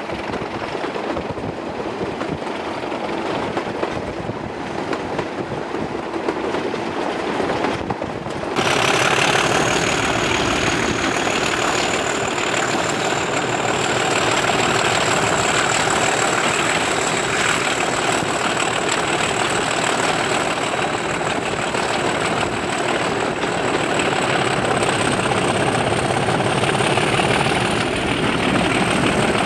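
Class 37 diesel-electric locomotive's English Electric V12 diesel engine working hard under power, heard from the open cab window. About eight seconds in the sound jumps louder and a high turbocharger whistle comes in, rising slightly and then holding steady.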